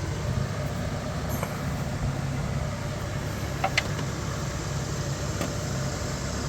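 Steady low mechanical hum in the background, with a light click a little before the four-second mark as parts are handled.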